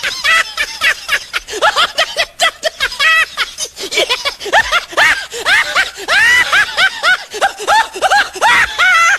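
High-pitched laughter and giggling in quick, rapid bursts with sharply bending pitch.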